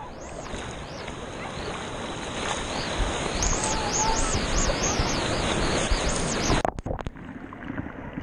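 Ocean surf rushing and a wave breaking right at the microphone at water level. The rush builds to its loudest about three seconds in and then cuts off abruptly for a moment near the end.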